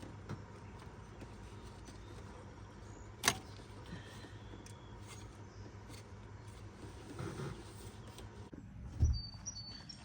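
Faint clicks and knocks of hand work at the engine's serpentine belt drive as the belt goes back on, with one sharp click about a third of the way in and a low thump near the end, over a steady low hum.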